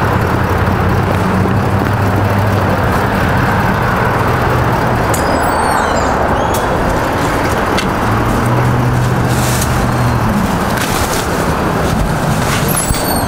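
A motor vehicle engine idling with a steady low hum, over continuous road traffic noise. A few faint high chirps come about five seconds in and again near the end.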